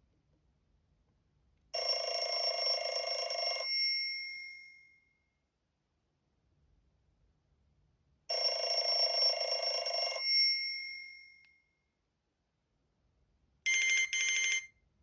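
Nokia E72 built-in alert tone, a ringing bell-like chime about two seconds long with a fading tail, played twice about six seconds apart. Near the end a different, shorter tone of two quick pulses sounds.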